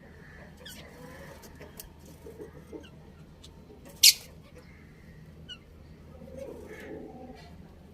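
Budgerigars chirping: one loud, sharp high call about four seconds in, with faint short chirps and soft chatter around it.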